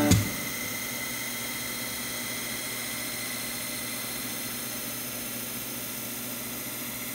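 Drill press spinning a wire wheel, a steady whir and hiss with a faint high whine, as a metal sheet is held against the wire brushes to clean it. A brief click right at the start.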